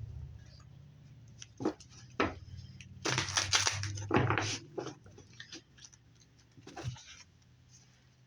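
Oracle cards being shuffled and handled: a few sharp taps, then a dense rustling shuffle about three seconds in lasting over a second, and a few more light taps near the end.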